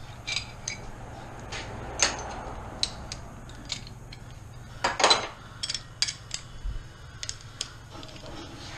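Metal hand tools clinking and clattering: a socket, extension and ratchet being handled against the engine, in irregular single clicks with a louder clank about five seconds in.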